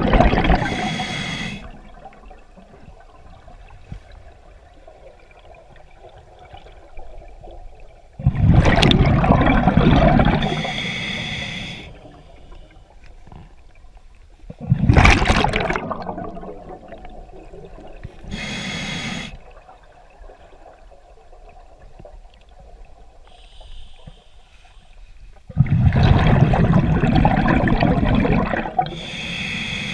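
Scuba diver breathing underwater through a regulator. Exhaled bubbles rush out in loud bursts of two to three seconds, each followed by a shorter, higher hiss from the regulator, about four breaths in all. Low water noise fills the pauses between breaths.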